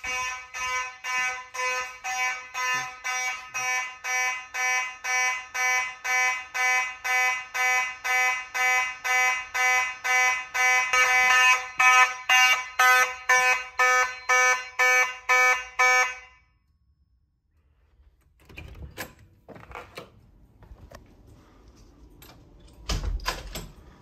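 Fire alarm horns sounding a steady pulsed pattern, about two buzzy blasts a second, getting louder about eleven seconds in. They cut off suddenly about two-thirds of the way through, followed by a few knocks and handling noises.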